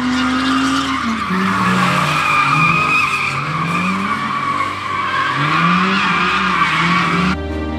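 Pickup truck doing burnout donuts: the engine is held at high revs for about a second, then revs up and down several times while the rear tyres squeal. Near the end it cuts abruptly to background music.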